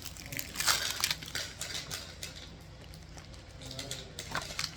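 A toy and its plastic packaging being handled, with a string of small clicks and rustles, the loudest just under a second in.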